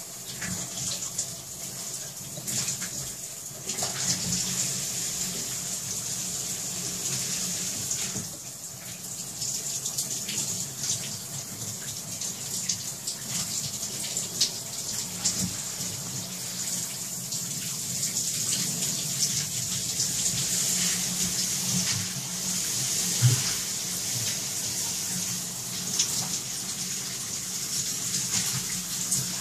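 Thin stream of water running from a faucet into a ceramic sink, a steady hiss broken by many small irregular splashes as a kitten paws at and pushes its head into the stream.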